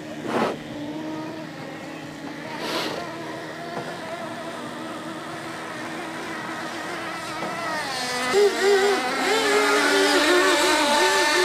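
Small engines of radio-controlled tunnel-hull model racing boats whining on the water, more than one pitch at once, with two short whooshes near the start. From about eight seconds in the sound gets louder and one engine revs up and down in a warbling pitch.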